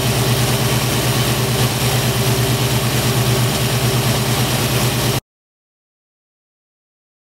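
Classic Ford Mustang engine idling steadily on its newly fitted electronic ignition, with the vacuum advance hose pulled off for a timing check. The sound cuts off suddenly about five seconds in, followed by dead silence.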